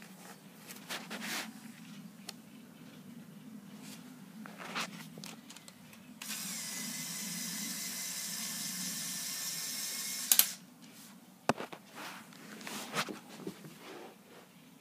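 A small Lego Power Functions electric motor whirs steadily for about four seconds, starting and stopping abruptly, with a sharp click as it stops. Clicks and rattles of plastic parts being handled come before and after.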